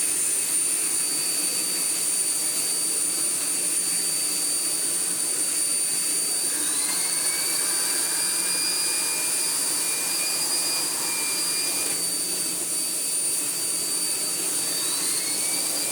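Miele Blizzard CX1 bagless vacuum cleaner running steadily with a constant high-pitched motor whine. A second whine from the air-driven Turbo Tech brush head rises in pitch about six seconds in and holds for several seconds, then rises again near the end: the turbine spinning up. It spins slowly but enough to work.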